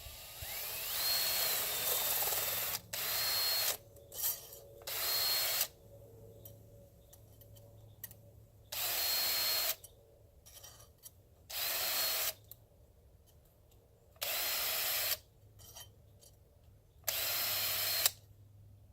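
Electric drill spinning a chainsaw sharpening stone in about eight short bursts, each a steady motor whine with a grinding hiss as the stone dresses one cutter tooth of the chain. The first burst is the longest and its whine rises as the drill spins up; the rest last about a second each, a few seconds apart.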